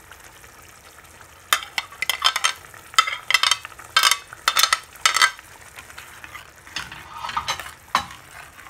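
Metal spatula stirring and scraping through a thick spiced onion, tomato and yogurt masala frying in a pan, over a low sizzle. Quiet at first, then a run of quick scraping strokes from about a second and a half in for a few seconds, and another short run near the end.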